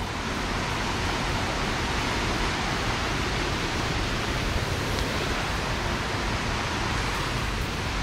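River rapids rushing: a steady, even sound of white water.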